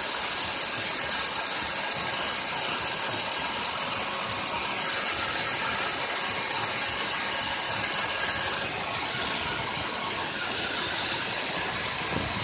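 Steady machine noise: a motor running evenly with a faint steady whine over a hiss, with a short low rumble near the end.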